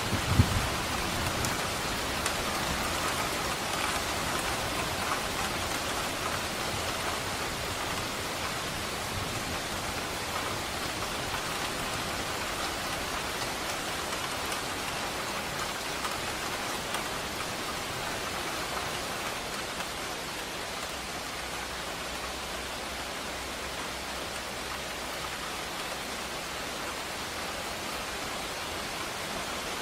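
Steady rain falling and pattering on surfaces, an even hiss of drops throughout. A brief low thunder rumble sounds right at the start.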